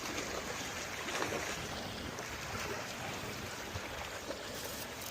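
Creek water running steadily, an even rushing with no pitch to it.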